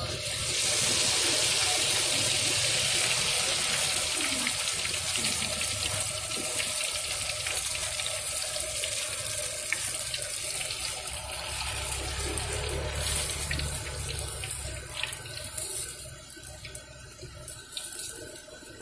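Cilung batter hitting hot cooking oil in a wok and sizzling: a loud hiss that starts at once and slowly dies down, weakening over the last few seconds as the batter fries.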